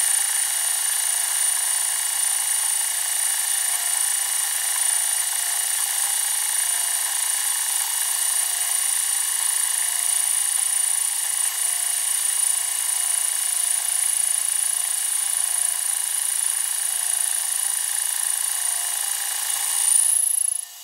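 Harrison M400 lathe boring out a thick flame-cut steel plate with a boring bar: the spindle turning and the tool cutting steadily, with a steady high-pitched whine over the machine noise. It cuts off abruptly at the very end.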